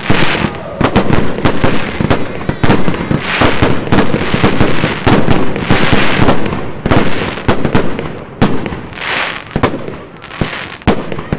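Aerial fireworks going off in quick succession: many sharp bangs with dense crackling between them.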